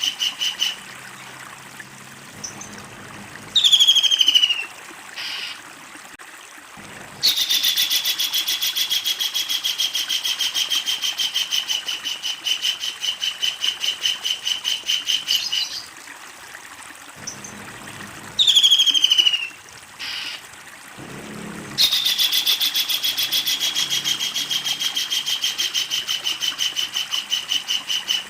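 Kingfisher (tengkek udang) giving its long, rapid rattling call, the 'ngekek panjang', twice, each running about eight seconds and settling slightly lower in pitch after a higher start. Short sharp calls falling in pitch come between the two rattles.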